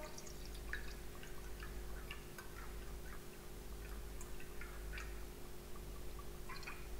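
Olive oil trickling from a bottle's metal pourer spout into a stainless steel mixing bowl: faint, irregular small gurgles and ticks over a low steady hum.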